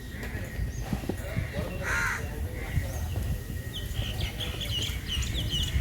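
Crows cawing several times, the loudest call about two seconds in, followed in the second half by rapid high chirping of small birds.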